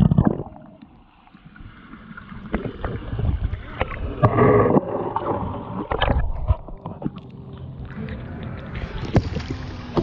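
Muffled water sloshing and scattered knocks and bumps close against the camera on a paddled kayak, dull in tone until near the end, when fuller, brighter sound returns.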